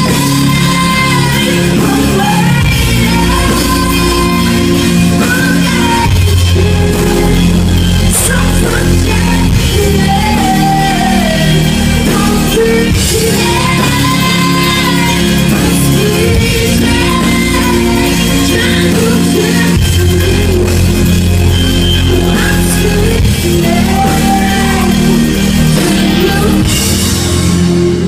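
A rock band playing a song live at loud volume, with a heavy steady bass and a sung melody gliding over it, recorded from the audience.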